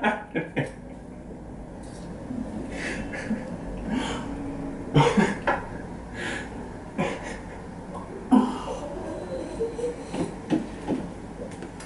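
Scattered short coughs, gasping breaths and chuckles from people whose mouths are burning from extremely spicy chicken, over a low steady hum.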